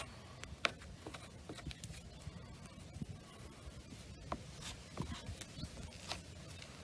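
Faint scrapes and light clicks of a plastic spreader working body filler onto a car dashboard, in short, irregular strokes.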